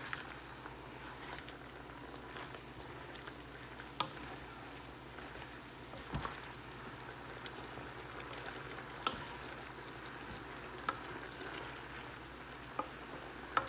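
Beef and broccoli simmering in sauce in an aluminium pot, a steady low hiss, with a few light knocks as a wooden spoon stirs and strikes the pot.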